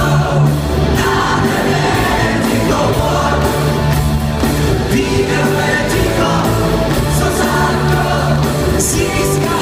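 Live pop-rock band in a large arena: a man singing lead over electric guitars, keyboards, bass and drums with a steady beat, heard from far up in the stands with the hall's reverberation.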